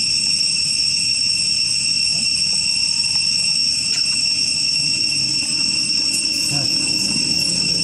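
Steady, high-pitched drone of a forest insect chorus, holding several unbroken tones throughout. A few faint, short high chirps come in about six seconds in.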